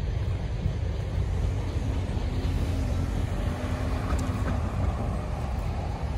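Car traffic moving over a railroad crossing: an SUV drives across the tracks about four seconds in, over a steady low rumble.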